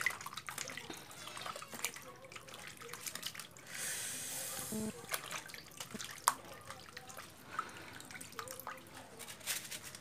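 A hand squeezing and stirring raw chicken pieces in a steel bowl of water: irregular wet squelches, splashes and drips, with a brief louder hiss about four seconds in.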